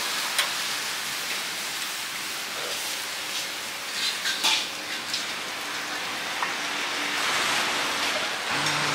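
Steady sizzling hiss of meat skewers cooking on a charcoal grill, with a few light clicks about halfway through.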